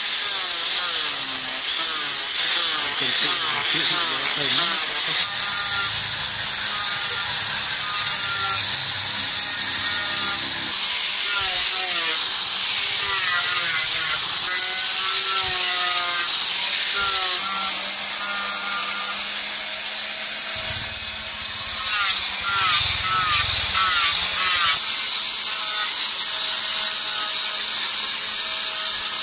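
Electric angle grinder with a sanding disc running at high speed, sanding a wooden knife-handle scale. It gives a steady high whine over the hiss of abrasive scraping the wood, and the pitch wavers as the disc is pressed into the curve.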